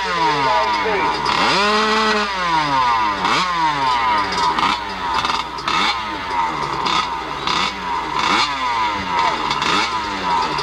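Kawasaki dirt bike's engine revved in repeated sharp blips, rising and dropping back about once a second, with one rev held a little longer about two seconds in.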